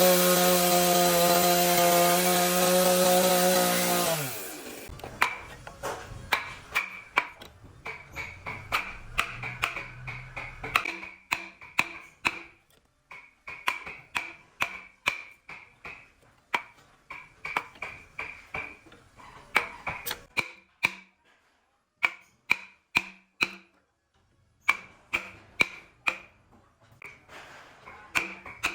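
A power saw runs steadily, then winds down about four seconds in. After that comes a long series of sharp hammer strikes on the work, two or three a second in runs with short pauses, each with a brief metallic ring.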